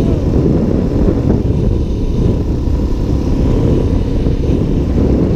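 Suzuki DR-Z400SM supermoto's single-cylinder engine running at road speed, mixed with steady wind rush on the helmet-mounted microphone.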